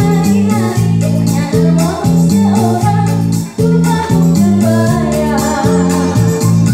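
A woman singing a pop song into a handheld microphone over a karaoke backing track with a steady bass line and drum beat.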